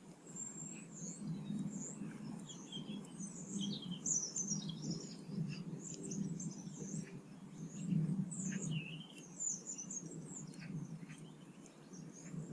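Small garden songbirds chirping and twittering, many short high calls overlapping without a break.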